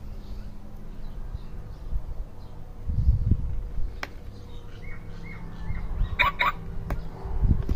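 A bird chirping, a few short chirps then two sharper calls, over low rumbling.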